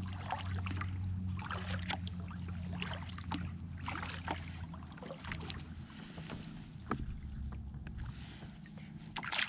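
Kayak paddling: water splashing and dripping off the paddle blades in irregular bursts, with a few light knocks, over a low steady rumble that eases about halfway through.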